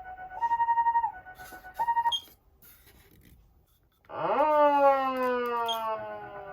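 Patlite electronic siren amplifiers: an ambulance-style hi-lo two-tone siren (the SAP-50's "fee-yo" sound) alternates steadily between a higher and a lower note, then cuts off about two seconds in. After a short quiet gap, a siren tone sweeps up sharply about four seconds in and slowly falls in pitch, and the hi-lo siren starts again at the end.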